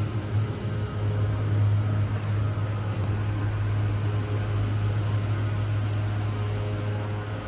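Steady low machine hum with no pauses or changes.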